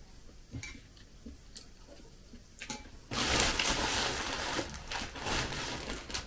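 A few faint small clicks of eating, then from about three seconds in a plastic packaging bag crinkling and rustling loudly as it is grabbed and opened.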